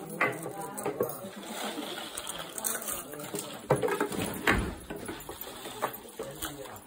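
Hollow cardboard fireworks tubes being handled and bundled by hand, knocking and rustling against each other, with a few sharper knocks.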